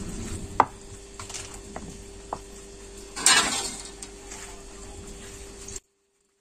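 Fried tempeh and tofu being mashed into sambal in an earthenware mortar (cobek) with a stone pestle and spatula: a few light knocks against the clay, then a louder squashing scrape about three seconds in, over a faint steady hum. The sound cuts off suddenly near the end.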